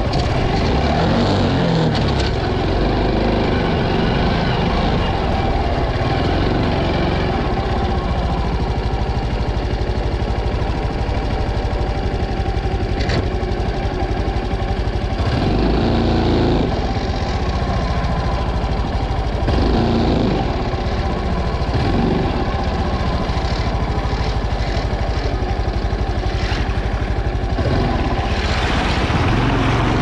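Honda CT125's single-cylinder four-stroke engine running steadily as the bike rides a rough dirt trail, with scattered knocks from bumps. Near the end a rush of splashing water as the front wheel drives into the river.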